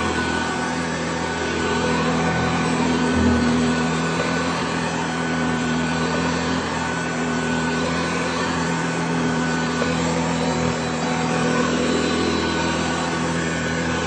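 Restored 1960s Penncrest A117 cord-reel upright vacuum cleaner, built by Hoover, running steadily with a low motor hum and a higher whine as it is pushed back and forth over a rug. There is a brief bump about three seconds in.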